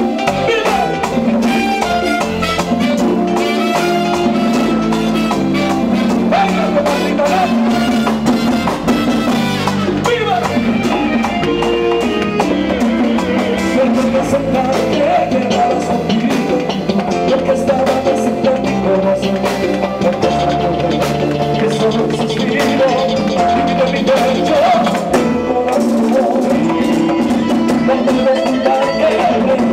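A live Latin dance band playing, with a male lead singer singing into a microphone over timbales and drums.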